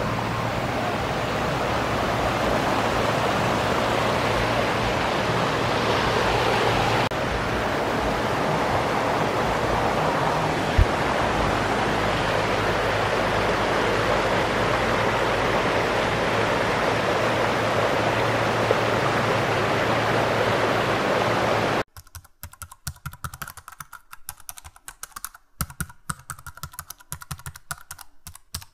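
A river rushing steadily. After about twenty seconds it cuts off abruptly and gives way to fainter, rapid keyboard typing clicks.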